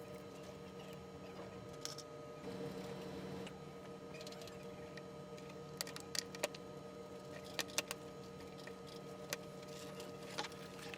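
Faint scattered clicks and taps from an iPad and its case being handled, most of them in the second half, over a steady low electrical hum.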